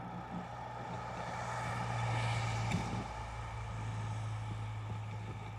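A vehicle engine running steadily with a low hum, getting a little louder about two seconds in and then easing back.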